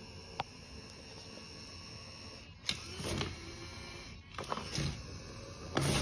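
Stiff plastic litter bag crinkling in three short bursts in the second half as a cat noses and paws into it, over a faint steady mechanical whir.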